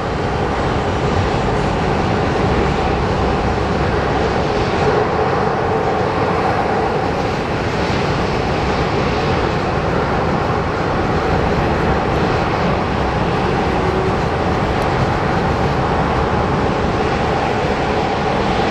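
Twin jet engines of a Boeing 767-300 airliner running on the ground as it taxis: a steady loud roar with a steady whine riding on it. The roar rises a little in the first second, then holds.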